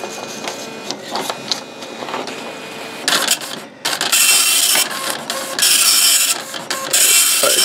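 Epson ActionPrinter 5000+ dot-matrix printer in self-test mode. It clicks and whirs with a faint steady whine as the paper feeds, then from about four seconds in the printhead prints line after line. Each pass is a loud, harsh burst of about a second, three of them with short pauses between.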